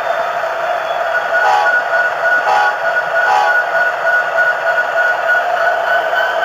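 Bachmann HO-scale SD70ACe Sound Value locomotive running slowly, its onboard sound decoder playing a steady diesel engine sound through its small speaker. A steady high whine comes in about a second in, and three short blips sound about a second apart.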